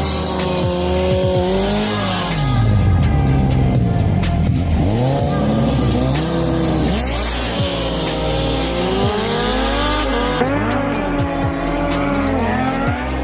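Kawasaki ZX-14 inline-four sport bike engines revving hard, pitch climbing and dropping repeatedly as they run up through the gears, with music and a heavy bass line playing underneath.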